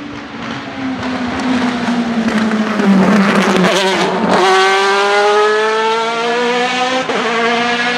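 The Zytek V8 of the MG-AR1 Furore race car passes close by. Its note falls as it comes off the throttle and grows louder, peaks about three seconds in, and then rises steadily as the car accelerates away.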